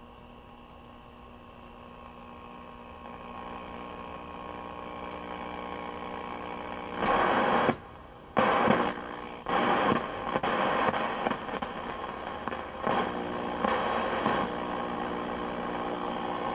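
A 1966 Sylvania tube colour television's speaker gives off a steady hiss and hum that slowly grows louder. From about seven seconds in, loud static cuts in and out with a series of sharp clicks as the tuning knob is turned between stations.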